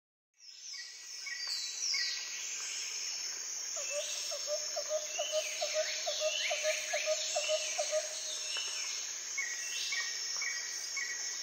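Night-time jungle ambience. A steady high insect trill runs under bird calls that sweep up and down. In the middle comes a run of quick, lower-pitched calls, about three or four a second, and near the end a short chirp repeats.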